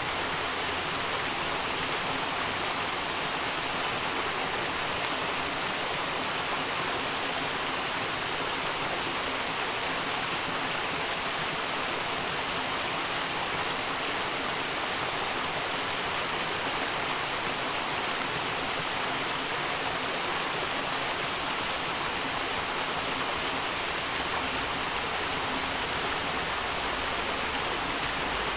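Small wild mountain stream rushing and splashing steadily, an even hiss of flowing water.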